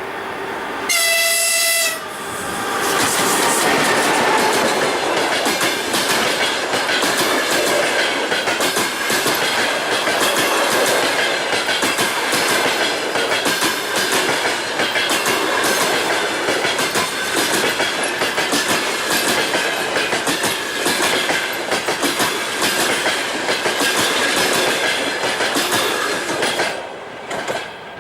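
An EP20 dual-current electric locomotive sounds one short signal blast about a second in. A passenger train then passes at speed, with a fast, steady clickety-clack of wheels over the rail joints and a high steady whine, until it drops away near the end.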